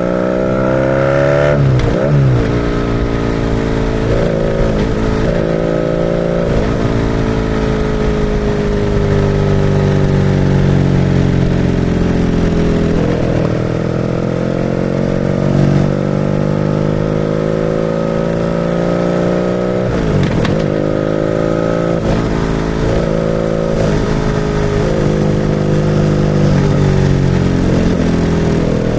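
BMW R nineT's 1170 cc air/oil-cooled boxer-twin engine under way. The engine note rises and then drops sharply several times as the rider shifts through the gears, and in between it falls away slowly as the throttle eases off.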